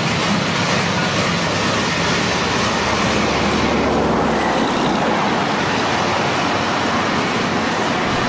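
Train rolling past: steady noise of wheels on rail, with a low rumble that drops away about four and a half seconds in.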